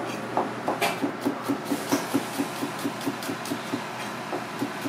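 Chef's knife chopping on a plastic cutting board: a quick, even run of knocks, about four or five a second, with a short pause near the end before a few more strokes.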